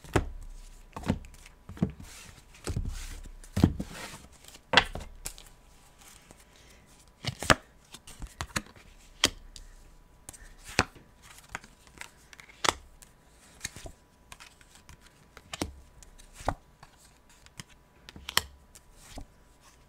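Tarot cards being handled and laid down one at a time on a cloth-covered table: a string of light taps and clicks every second or two, with some rustling of the cards in the first few seconds.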